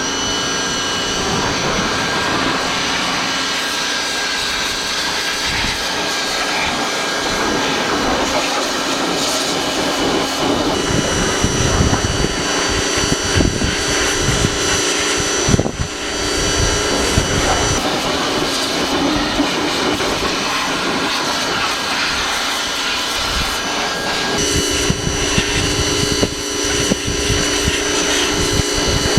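Pressure washer running, its high-pressure spray blasting down a side-by-side's engine: a steady, loud hiss of water over a machine whine whose pitch pattern shifts a couple of times, with a brief break a little past halfway.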